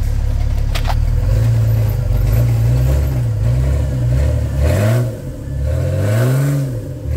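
Lifted Jeep Cherokee's engine pulling under load on a rock climb: first held at fairly steady revs, then revved up and back down three times in quick bursts as the throttle is worked. A single sharp knock comes about a second in.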